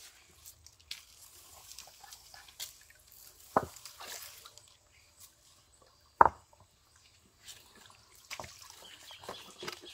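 Small splashes and drips of shallow stream water as hands feel about among wet stones. Two sharp plops stand out, about three and a half and six seconds in, the second the louder.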